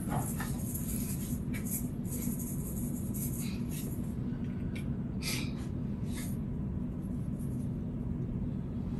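Steady low hum of room noise, with a few faint, light ticks scattered through it.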